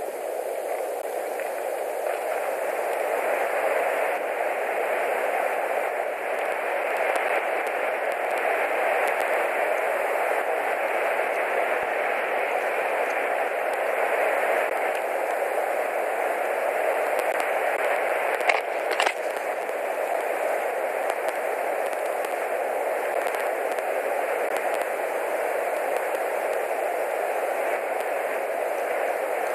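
Steady static-like hiss from the nest camera's microphone, with a short rustling scrape about two-thirds of the way through.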